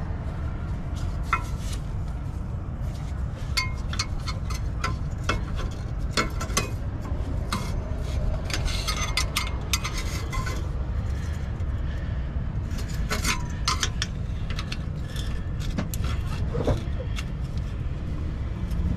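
Steel hand tools clicking and clinking against the rusted turbocharger mounting hardware of a diesel engine as a stuck bolt is worked: scattered sharp metallic clicks, some in quick clusters, over a steady low rumble.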